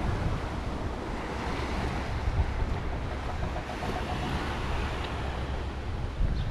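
Sea waves washing steadily against rocks and the shore, with wind gusting on the microphone as a low rumble.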